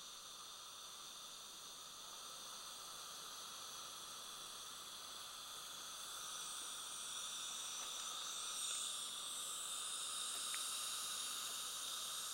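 Steady hiss, rising a little in level about halfway through, with no distinct strokes or knocks.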